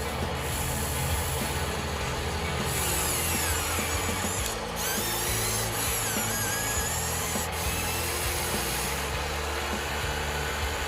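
Small electric motors of a radio-controlled construction vehicle whining, their pitch rising and falling as they speed up and slow down.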